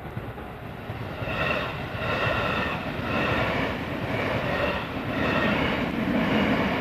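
Japanese level-crossing warning bell ringing in an even repeating beat, starting about a second in, over the rumble of a train on the line that grows louder toward the end.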